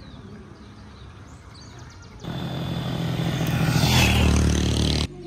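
A motor vehicle's engine comes in suddenly about two seconds in, with a low hum under a rushing noise. It grows louder, then cuts off abruptly near the end.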